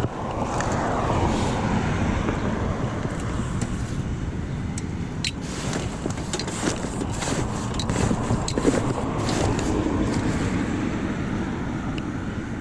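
Road traffic passing, with wind on the microphone and scattered light clicks.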